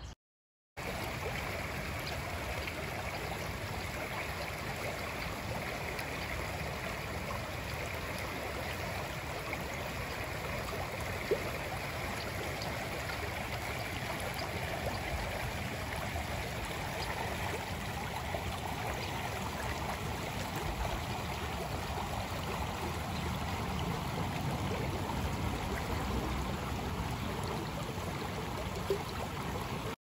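Shallow stream rushing and babbling over stones, a steady flow of water that starts after a brief silent gap.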